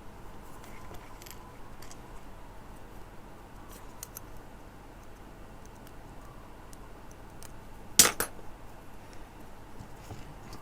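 Small metal hand tools clicking and clinking while working on a jumper wire's tiny crimp terminal, with scattered light ticks and one sharp, loud click about eight seconds in.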